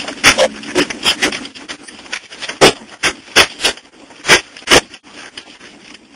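Loud, irregular knocks and bangs inside a truck's cab as it jolts over rough off-road ground, many in quick succession in the first two seconds, then single knocks every half second or so.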